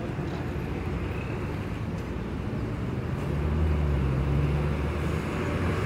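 A three-axle battery-electric city bus pulling slowly past at close range over a steady background of traffic noise. About three seconds in, a low steady hum grows louder as the bus draws alongside, then eases off near the end.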